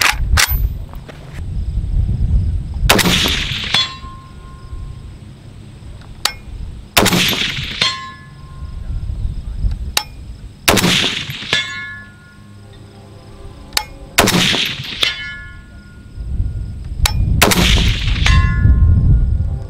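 Five single shots from a 16-inch-barrel WBP Fox AK rifle firing 7.62x39 Wolf 122 grain FMJ, spaced about three and a half to four seconds apart. Each shot echoes briefly and is followed by a short ringing tone.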